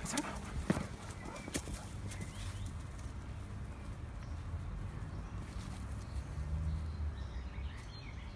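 Outdoor background on a phone microphone: a low irregular rumble, a few sharp taps in the first two seconds, and faint bird chirps near the end.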